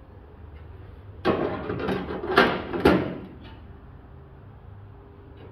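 Hand-made sheet-metal quarter panel section scraping and knocking against the car body as it is set in place, for about two seconds starting a second in, with two sharper knocks near the end of it. A low steady hum underneath.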